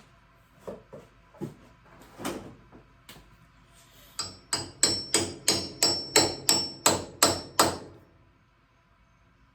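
Hammer tapping a socket used as a driver to push the steering cylinder seal down the shaft. A few scattered light taps come first, then a quick even run of about a dozen strikes, three or four a second, each with a metallic ring, stopping near the end.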